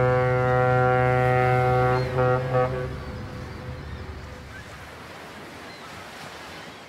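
Cruise ship horn sound effect: one long, steady deep blast that breaks into a couple of short toots about two seconds in. Ocean waves wash under it and fade away, then the sound cuts off near the end.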